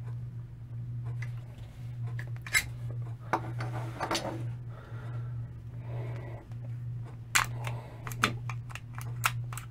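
Sharp metal clicks and clacks of a Spanish-made WWI Ruby pistol being stripped by hand: the magazine drawn out and the slide worked. There are a few separate clicks early in the middle, then a quick run of clicks near the end, over a steady low hum.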